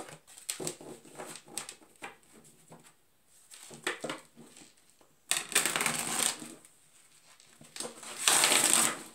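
A deck of tarot cards shuffled by hand: a patter of soft card clicks, then two louder rushes of cards being shuffled, about five and eight seconds in.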